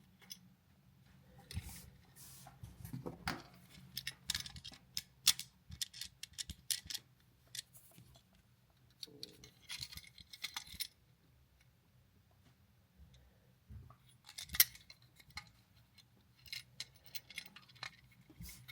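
Small clicks, taps and light metallic scrapes in irregular clusters: an electrical outlet and its wires being handled while the wires are looped onto the terminal screws.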